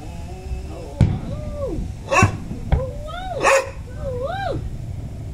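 Aerial fireworks shells bursting overhead, several sharp bangs a second or so apart. Between the bangs come high, wavering cries that rise and fall in pitch.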